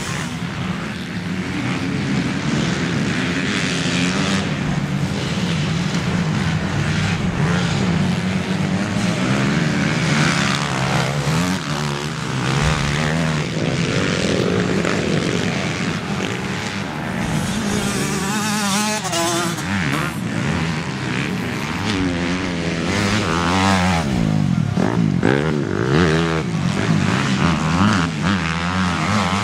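Motocross bikes running on a dirt track, their engines revving up and down as they pass through the corners. Several engines are heard together, with the pitch rising and falling in waves, most clearly in the second half.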